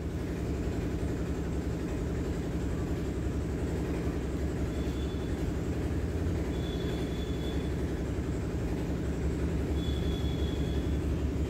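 Steady low rumble, with a faint high whine that comes and goes three times.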